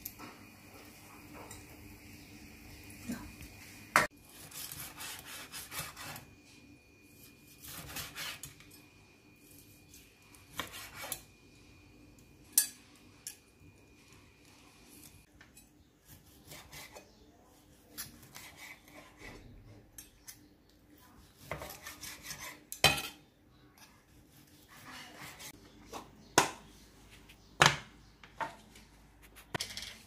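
Tongs working grilled pork on a foil-lined tray, then a kitchen knife slicing the pork on a wooden cutting board: scattered sharp knocks of the blade striking the board between quieter scraping and rustling.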